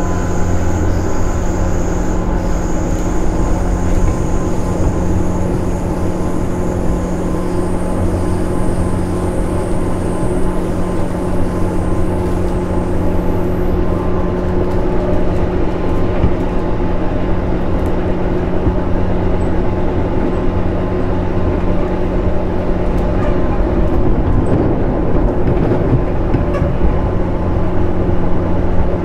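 Running sound of a JR East 211 series 2000-subseries electric multiple unit under way, heard from inside the car: steady wheel and motor noise with a constant low hum. A faint high whine fades out about halfway through.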